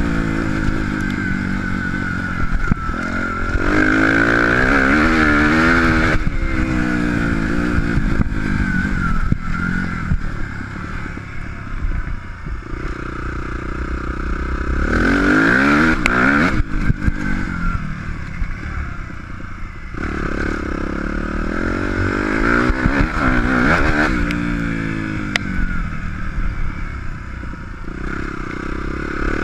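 Suzuki RM-Z250 motocross bike's single-cylinder four-stroke engine ridden hard on a dirt track, its pitch climbing as the throttle opens and falling back between, several times over. Heard onboard, close to the bike.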